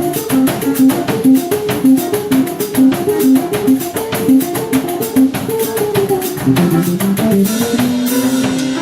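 Music with a plucked guitar line over a drum kit keeping a steady beat; near the end the bass notes climb and the high end changes.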